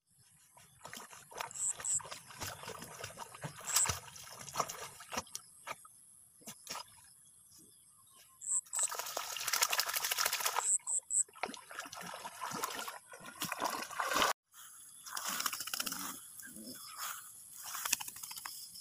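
Dogs splashing and moving through shallow, weedy pond water, in irregular bursts with short quiet gaps.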